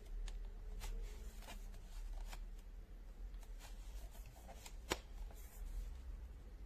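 Quiet handling noise: scattered light clicks and taps, with one sharper click about five seconds in.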